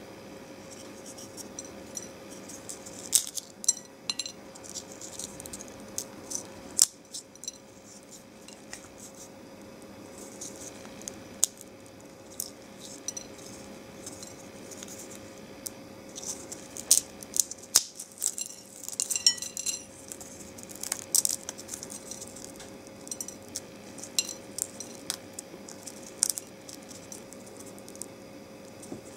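Dry freeze-dried space-food takoyaki being broken and crumbled by hand, giving irregular crisp crackles and crunches, with crumbs ticking onto a ceramic plate. The crackling comes in scattered bursts, busiest about three seconds in and again in the middle stretch.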